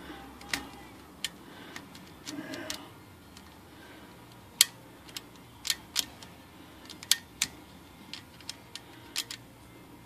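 Irregular sharp metallic clicks and taps, about a dozen, from the typewriter's carriage mechanism being handled. The loudest click comes a little before the middle.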